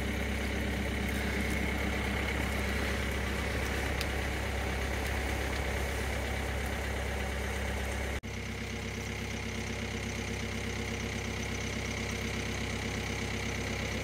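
Car engine idling steadily. About eight seconds in the sound cuts abruptly, then carries on a little quieter.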